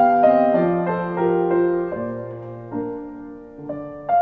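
Solo piano playing a slow, gentle classical piece, its notes and chords left to ring and fade, with a new chord struck near the end.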